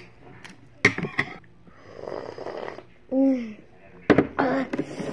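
Eating and breathing sounds of a person having spicy ramen: sharp mouth or utensil clicks, a breathy, noisy stretch a couple of seconds in, and short vocal sounds falling in pitch. They are reacting to the spice with a runny nose.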